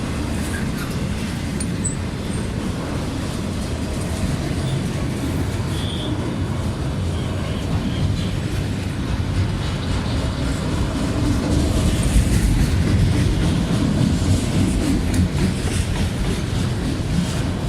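Freight train rolling past, its steel wheels rumbling and clacking over the rail joints. The rumble swells louder for a few seconds past the middle.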